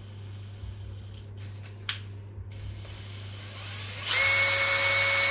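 Makita 18V cordless drill turning a straight-flute tap in a hole in the milling machine's cast-iron column. The motor whines faintly at first, with a sharp click about two seconds in. From about four seconds in it runs loudly at a steady pitch.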